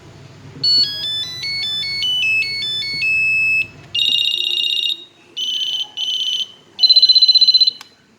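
Ericsson mobile phone monophonic ringtones: a short melody of stepped single beeps, then a fast warbling trill ring in four bursts, the last the loudest, followed by a click.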